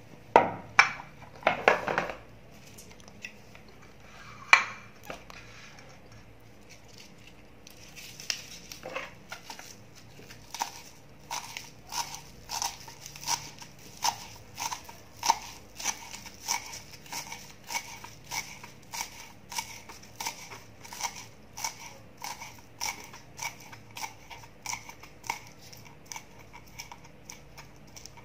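Kitchen knife chopping green onions on a thick wooden chopping board: a few loud knocks first, then from about eight seconds in a long run of even, sharp chops, about one and a half a second, stopping near the end.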